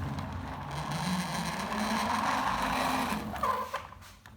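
Toy RC cars running: small electric motors whirring and wheels rolling and scraping across the floor, with a wavering hum. The sound fades away near the end.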